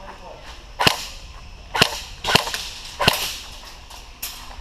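Airsoft gun firing four sharp single shots a half-second to a second apart, with a fainter snap near the end.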